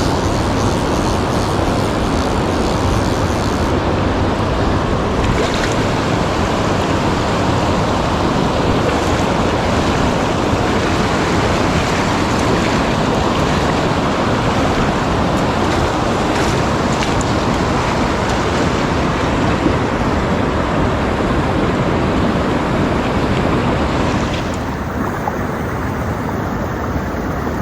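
Steady loud rushing of moving water. About 24 seconds in, the hiss loses its top end and drops a little in level.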